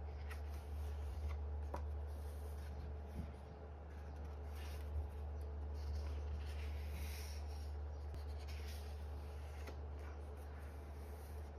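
Pages of a softcover book turned by hand: paper rustling and sliding in several short bursts, with a few light taps, over a steady low hum.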